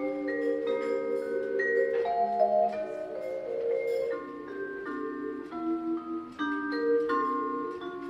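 Vibraphone played solo with mallets: chords of several notes struck together and left to ring, with a pulsing shimmer on the held notes.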